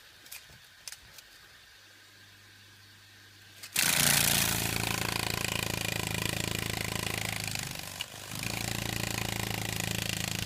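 A Hercules beetle beating its wings while held by its horn: a loud, steady buzz that starts suddenly about four seconds in. The buzz dips briefly around eight seconds, then picks up again.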